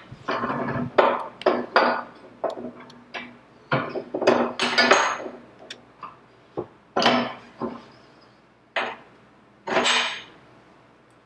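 Irregular metal clanks and knocks, a dozen or so with some brief ringing, as a front axle housing and a caged needle bearing are handled and set on a hand arbor press and the press lever is worked to push the bearing in.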